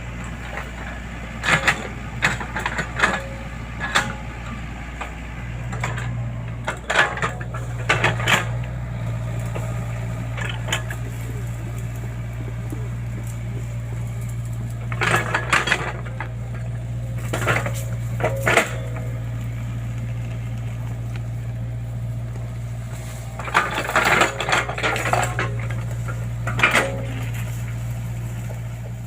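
Excavator's diesel engine running steadily with a low hum, with bursts of metallic clanking and rattling from the machine as it works, loudest about a quarter of the way in, around halfway and near the end.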